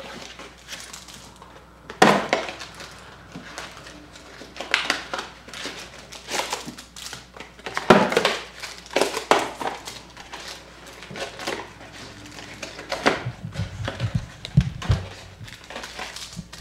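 Cardboard trading-card boxes and wrapped packs being handled and opened by hand: irregular crinkling and rustling with sharper crackles, loudest at about two and eight seconds in, and a few low knocks against the table near the end.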